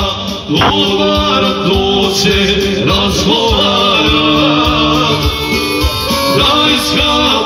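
A man singing live into a microphone over an electronic keyboard, both amplified through a PA system, with long held vocal notes.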